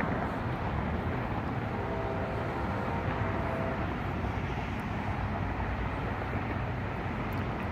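Amtrak passenger train's diesel locomotives running, a steady low rumble, with faint whining tones for a couple of seconds near the middle.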